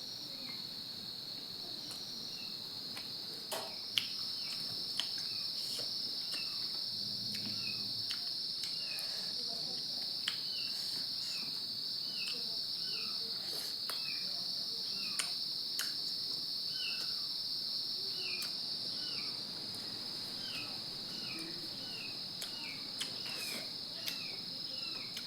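Steady high-pitched chirring of an insect chorus, likely crickets, with short falling chirps repeating every second or so and a few scattered sharp clicks.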